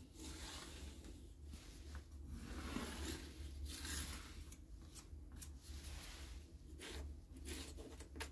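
A red pencil scratching numbers onto cardboard templates while the cardboard pieces are slid and rubbed across a board, in short, irregular strokes over a faint steady low hum.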